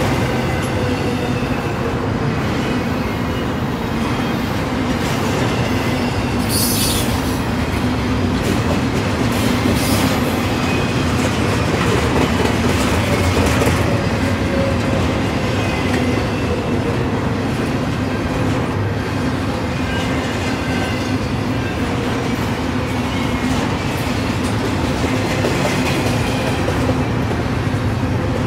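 Double-stack intermodal train's container well cars rolling past, a steady loud rumble and clatter of steel wheels on the rails, with faint high wheel squeals now and then.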